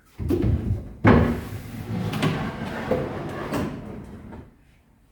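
A drawer being set onto stainless steel drawer slides: a knock, a louder knock about a second in, then a few seconds of scraping and rolling as it is pushed along the runners, dying away near the end.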